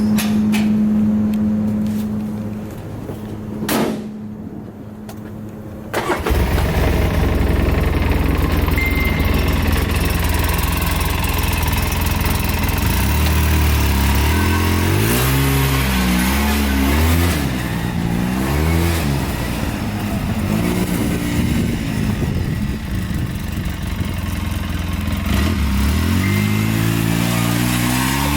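Polaris RZR 800 side-by-side's engine: a steady hum at first, then about six seconds in it comes up loud and runs. Its pitch rises and falls several times as the throttle is worked on a test drive.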